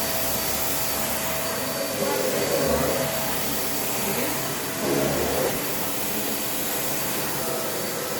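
Dyson Ball Animal upright vacuum cleaner running steadily on carpet, swelling louder about two and five seconds in as it is pushed back and forth. It is pushing the dirt around rather than picking it up on this setting.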